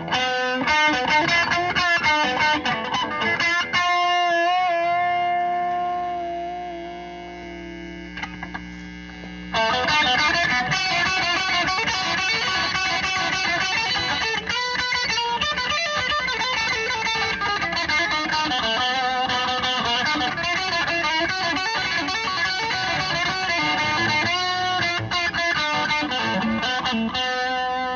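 Electric guitar, a 1965 Gibson SG Jr., played through a 1975 Marshall JMP combo amp with overdriven, distorted tone. A quick run of notes ends about four seconds in on one sustained, bent note that fades away. About ten seconds in, steady, busy playing picks up and carries on to near the end.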